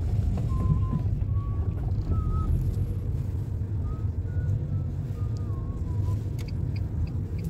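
Bus engine and road rumble heard from inside the moving bus, a steady low drone. Faint short high tones come and go in the first few seconds, and a run of light, evenly spaced ticks comes in near the end.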